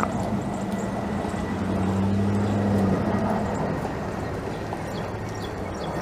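Low, steady drone of a passing vehicle, a little louder around two seconds in and easing after about three seconds.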